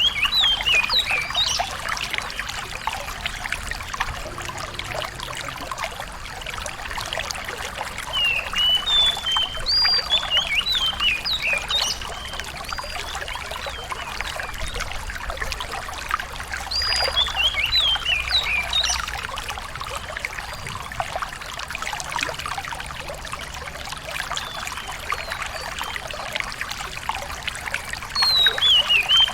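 A small songbird sings short, rapid phrases of sharp, quickly gliding high notes, four bursts about nine seconds apart, over a steady trickle of running water.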